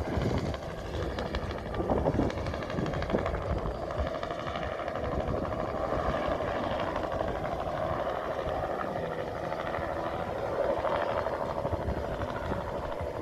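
Helicopter flying overhead as it climbs away after takeoff: a steady rotor beat and engine noise with no break.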